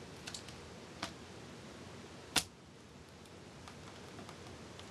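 Handling of an HP Pavilion tx2500 convertible laptop: a few light clicks, then one sharper click about two and a half seconds in.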